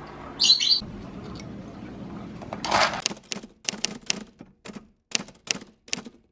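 A short high squeak about half a second in, a brief rush of noise near the middle, then a run of sharp taps or clicks, about two a second.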